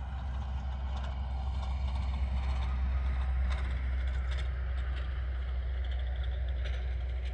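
Distant jet airliner engines rumbling steadily as the aircraft taxi and line up on the runway, with scattered small clicks and ticks over the low rumble.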